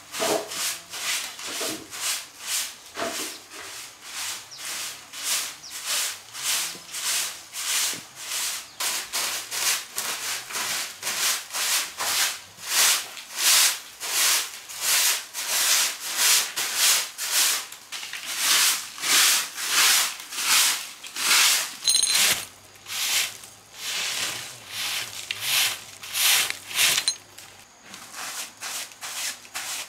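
A hand tool rubbed in quick back-and-forth strokes across a workpiece, about two strokes a second, with a short break just past the middle and lighter strokes near the end.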